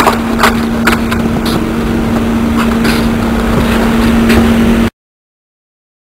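Steady outdoor background hum and hiss with a few short, sharp knocks or clicks, then the sound cuts off suddenly to silence about five seconds in.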